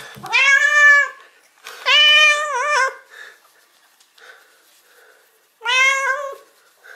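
Domestic cat meowing loudly three times in long, drawn-out calls, the second wavering in pitch near its end: a cat greeting its owner back after a long absence.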